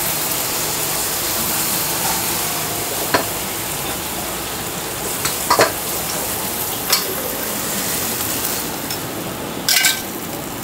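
Food sizzling steadily in a wok, with a metal ladle clanking against the wok several times, the loudest just before the end.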